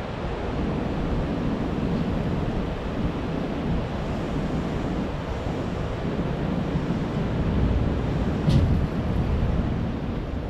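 Train washing plant running, a steady rushing noise of water spray and machinery on a passing train. A brief sharp sound cuts through about eight and a half seconds in.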